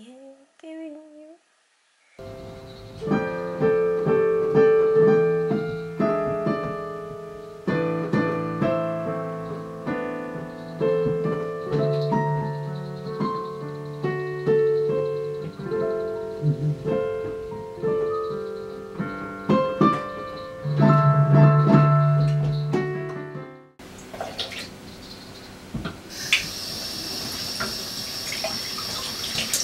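Digital piano being played: a melody of single notes over low chords, lasting about twenty seconds and stopping abruptly. Then a kitchen tap runs water steadily into a stainless steel sink.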